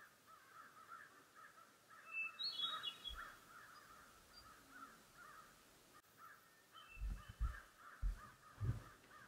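Birds calling over and over, a steady run of crow-like calls, with a few higher chirps about two seconds in and again near seven seconds. Several low thumps near the end.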